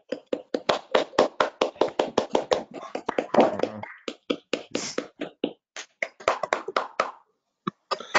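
Hands clapping in a quick, even run of about five claps a second, with brief pauses near the middle, thinning out to a few scattered claps near the end.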